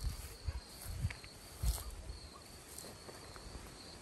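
Crickets trilling steadily at a high pitch, with a few soft low thumps in the first two seconds, the loudest a little under two seconds in.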